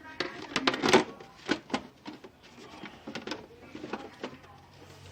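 A string of sharp clicks and knocks from handling the stereo's cabinet and parts while it is being closed up, loudest in the first second or so and fainter after.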